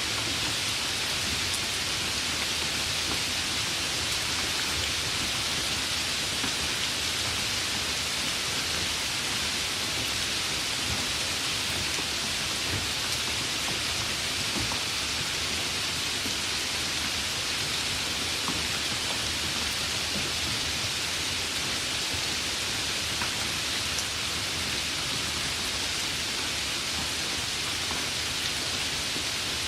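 Light rain falling in a steady, even hiss, with a few faint separate drop ticks.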